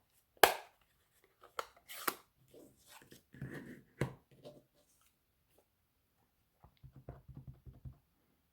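Stamping supplies handled on a craft table: a few sharp plastic clicks and knocks in the first four seconds, then a short run of light, quick taps near the end as a stamp is inked on an ink pad.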